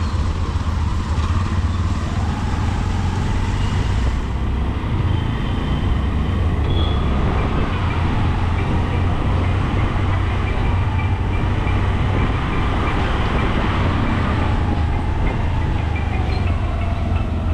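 Steady road and traffic noise with a heavy low rumble of wind on the microphone, heard from a moving bicycle.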